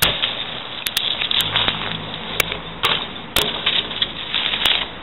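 BMX bike riding on pavement: rough rolling noise from the tyres broken by a string of sharp knocks and clacks at irregular intervals from the bike hitting the ground.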